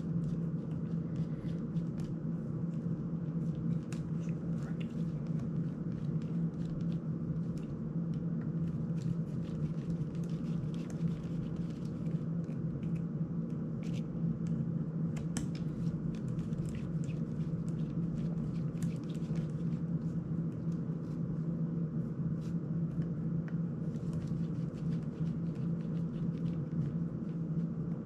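A steady low hum runs throughout, with scattered small clicks and ticks of a precision screwdriver and small drone parts being handled while a motor is unscrewed from a GEPRC CineLog 35 frame.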